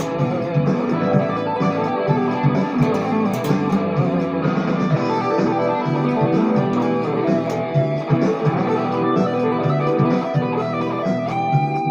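Ibanez RG350EX electric guitar playing a fast, busy run of single notes, ending in a held note near the end.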